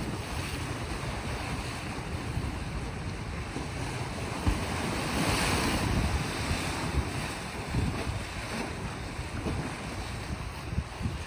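Small sea waves washing against a rocky shore, swelling to a louder wash about halfway through, with wind buffeting the microphone.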